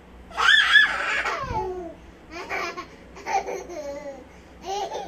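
Young child laughing and squealing during play, a long high squeal about half a second in that falls in pitch, followed by several shorter bursts of laughter.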